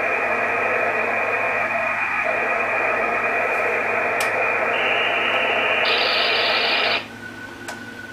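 Hiss from an SDR ham radio receiver with no signal tuned in. The hiss is stepped through filter bandwidth presets: it widens and brightens twice, then about seven seconds in narrows abruptly to a thin, much quieter band of hiss. A few faint clicks come through.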